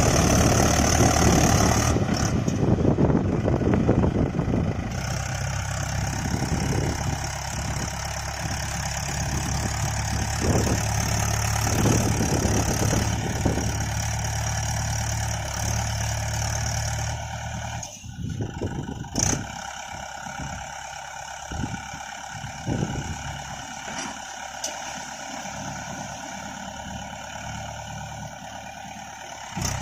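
Heavy diesel engine of working earth-moving and tractor machinery running steadily, with a high steady whine over it. About two-thirds of the way in the sound breaks off suddenly and comes back quieter, with scattered short knocks.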